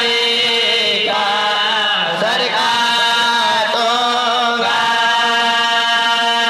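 Unaccompanied male voices chanting an Urdu marsiya in a group, the backing reciters holding long drawn-out notes. The pitch bends and wavers in the first half, then settles into one long steady held note from about five seconds in.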